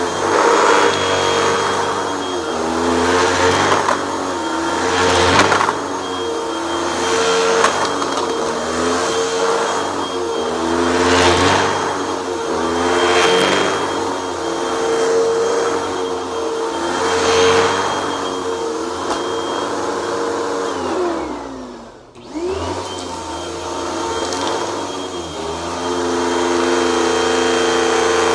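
Upright vacuum cleaner running over carpet, its sound swelling and easing with each push-and-pull stroke, about one every two seconds. About twenty seconds in, the motor winds down almost to a stop, then spins back up and runs steadily near the end.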